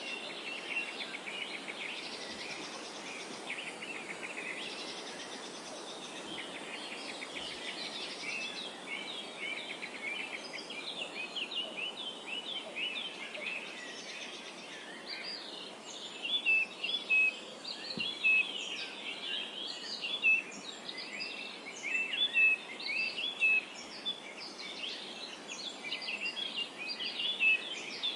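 Many songbirds chirping and trilling together at once, a dense overlapping chorus over a steady background hiss; from about halfway through, some sharper, louder chirps stand out.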